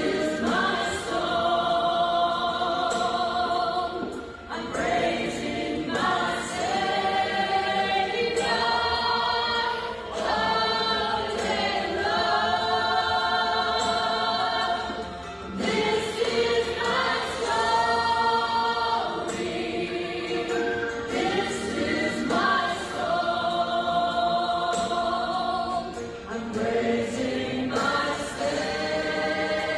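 Two women singing a gospel song into microphones, holding long notes between short breaks.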